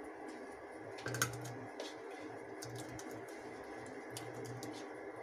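Chopped mango pieces tipped from a bowl into an empty aluminium pressure cooker, dropping onto the metal with a scatter of small taps and clicks, the sharpest about a second in.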